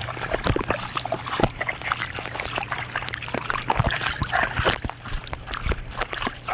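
Water splashing and dripping in a rainstorm, with many irregular sharp taps and splats.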